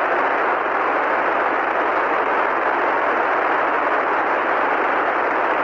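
Steady hiss of radio static on the Apollo 11 air-to-ground voice link, heard while no one is transmitting.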